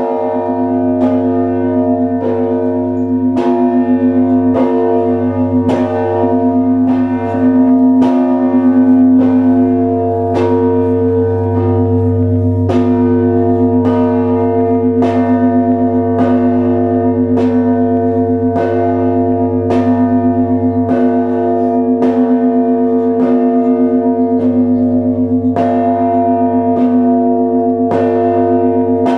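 Russian Orthodox church bells of the Trinity-Sergius Lavra belfry ringing together, their clappers striking about one and a half times a second over the long, sustained hum of the deeper bells.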